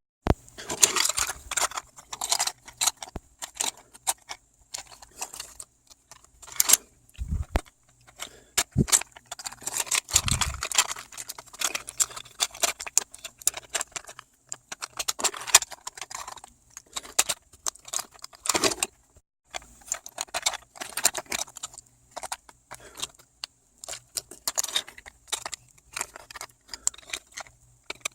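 Rapid, irregular clicking and rattling of the hinged plastic parts of a foldable 3D-printed van model being handled and folded, sped up in time-lapse, with a few dull thuds.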